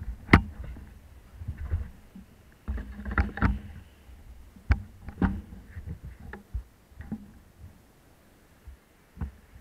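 Scattered sharp knocks and clicks picked up by a stationary action camera, a second or two apart. A low vehicle engine rumble rises and passes about three seconds in as a box van crosses.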